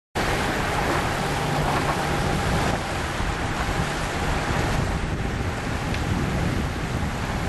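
Wind buffeting the microphone over the steady rush of sea water along a sailing yacht under way.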